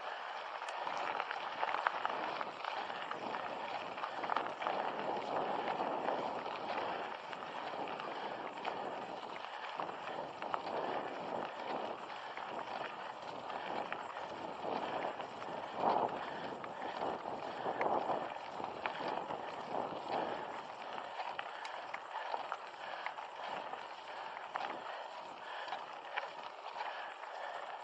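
Mountain bike being ridden uphill on a dirt trail: a steady crunch of tyres on the ground, with many small rattles and knocks from the bike.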